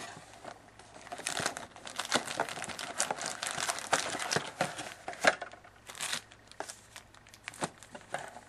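Plastic-wrapped hockey card packs crinkling and rustling as they are pulled out of a 2011-12 Elite card box and stacked. Quick crackles come thick in the first half, then more scattered.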